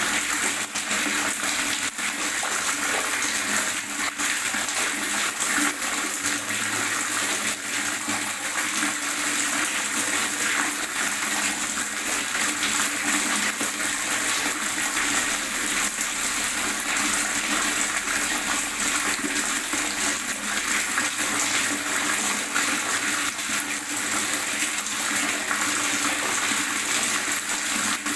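Water gurgling without a break, a steady rushing with fine, rapid flicker in it.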